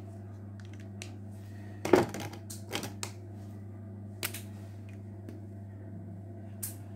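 Scattered sharp clicks and knocks, a cluster of them about two seconds in and single ones later, over a steady low hum.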